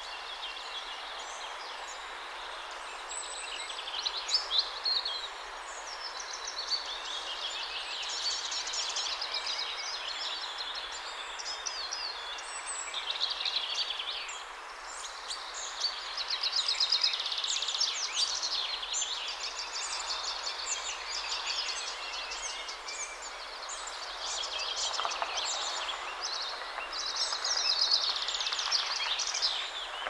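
Dawn chorus: several songbirds singing at once in overlapping phrases of rapid repeated high notes, over a steady hum of distant city traffic.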